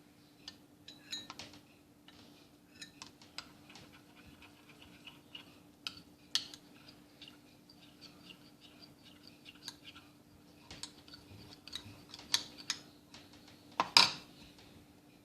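Irregular light clicks, taps and clinks of kitchen utensils against dishes as a honey-and-lemon drink is prepared, with one louder knock near the end. A faint steady hum runs underneath.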